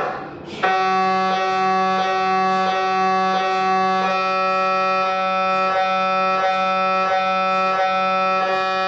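MRI scanner's gradient coils running a brain-scan sequence: a loud, steady buzzing tone with many overtones, starting about a second in and broken by brief gaps about every 0.7 seconds.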